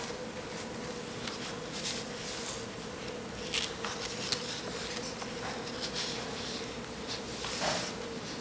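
Quiet room tone: a steady hum with an even hiss, broken by a few faint short rustles and ticks.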